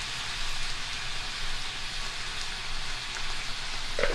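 Sliced bell peppers and onions sizzling steadily in a frying pan, with a couple of light knocks near the end.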